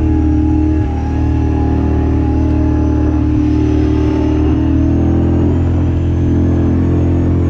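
Off-road vehicle's engine running at a steady speed, its pitch rising and falling only slightly.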